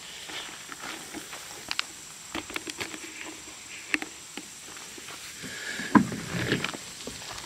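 Handling noise as a plastic fin is brought to an inflated paddleboard: scattered light clicks, taps and scuffs, with footsteps on leaf litter, and a louder cluster of knocks and rubs about six seconds in.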